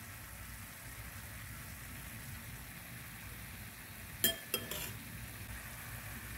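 Pork cubes and string beans simmering in a shallow pan of water with a soft, steady sizzle. A little past halfway, a quick run of three sharp clinks from the utensil on the pan.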